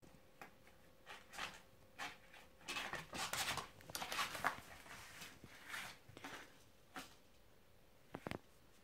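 A cat's claws scratching and batting at the mesh and fabric of a Sleepypod carrier's dome lid: irregular rustling and scraping, busiest in the middle, with a few sharp clicks near the end.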